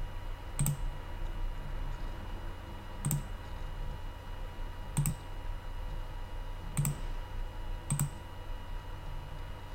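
Five sharp computer mouse button clicks, spaced one to two and a half seconds apart, over a faint steady electrical hum.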